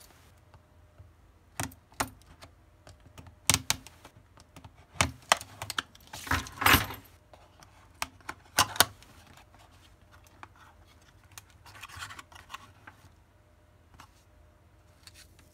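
Small cardboard trading-card box being opened by hand: a string of sharp clicks, taps and short scrapes of fingernails and paper flaps, loudest in the first half, then softer scratching as the box lies open.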